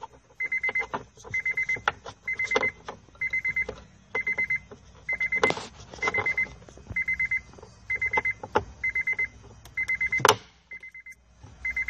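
A car's electronic warning chime beeping in short fluttering bursts, repeating steadily a little faster than once a second. A few clicks and knocks of the plastic glove box being refitted come through it, the loudest about ten seconds in.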